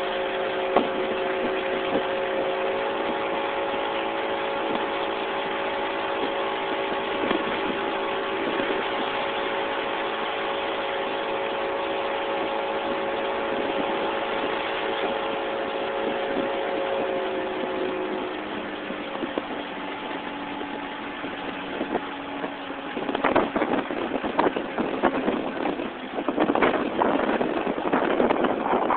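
Small boat's engine running steadily under way, its hum easing and dropping in pitch a little past halfway as the throttle comes back. Gusty rushing noise takes over in the last few seconds.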